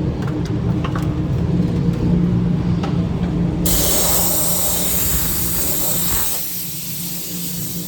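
An aerosol can of garage door lube spraying in one long hiss that starts suddenly about halfway through and cuts off near the end. Under it, a low mechanical rumble with a steady hum dies away about two-thirds of the way through.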